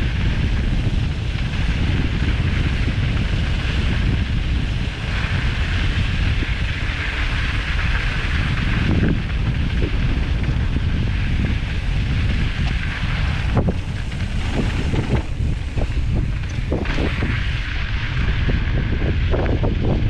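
Wind buffeting the microphone over the rolling of mountain bike tyres on loose dirt and gravel, as one steady rushing noise. From about halfway on, scattered clicks and knocks come from the bike over rough ground.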